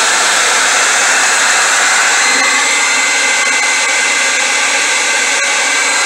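Handheld hair dryer running steadily, a loud even rush of air with a faint steady whine.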